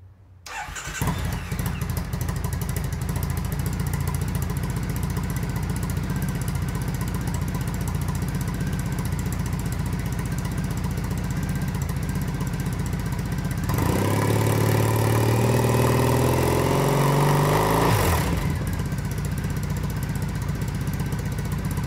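Triumph Bonneville T100 parallel-twin engine with Dominator Touring aftermarket exhausts, started up about a second in and then idling steadily. From about 14 to 18 seconds in it is revved, its pitch rising, and then it drops back to idle.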